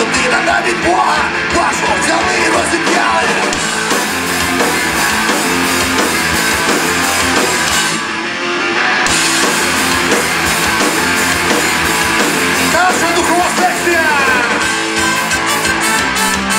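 Live rock band playing with a male lead vocal. About eight seconds in, the bass and cymbals drop out for about a second before the full band comes back.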